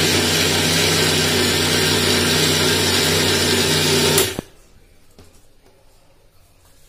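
Electric mixer grinder running with its small steel jar, dry-grinding cashews and cucumber seeds with cardamom into powder. The motor runs steadily and cuts off about four seconds in.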